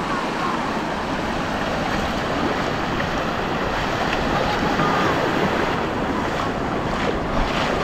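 Shallow sea water washing and splashing around feet wading through the surf, a steady rushing hiss, with wind buffeting the microphone.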